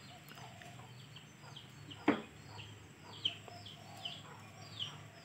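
A bird chirping over and over: short high notes that fall in pitch, about two a second, with a single sharp knock about two seconds in.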